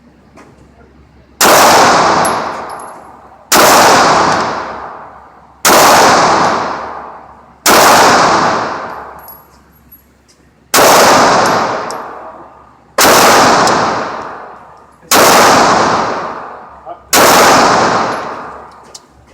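Eight gunshots fired one at a time, roughly two seconds apart, each a sharp blast that rings out and dies away over a second or so.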